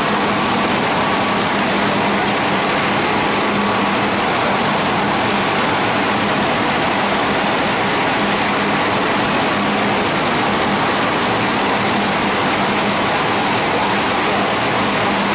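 8-foot spindle veneer lathe running as it peels face veneer from a log: a steady, loud rush of noise with a low hum under it.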